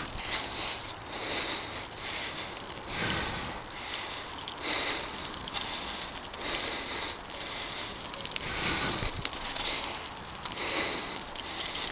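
Mountain bike rolling fast over a dirt and gravel trail: steady crunching and crackling of the tyres on loose grit, with a few sharp clicks and rattles from the bike.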